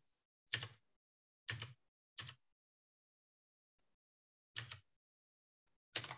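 Five faint, short clicks from operating a computer, spaced irregularly about one to two seconds apart.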